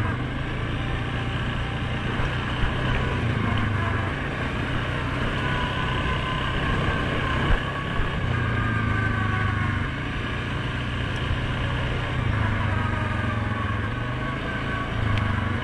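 Suzuki King Quad 750 ATV's single-cylinder four-stroke engine running as it rides along a dirt trail, its note rising and falling a little with the throttle over a haze of tyre and trail noise. Two sharp knocks come about halfway through.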